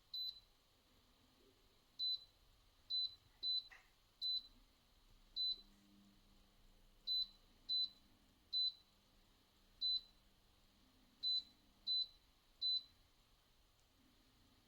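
Electronic keypad beeps: about thirteen short, high single-tone beeps at uneven intervals, as buttons on a digital control panel are pressed.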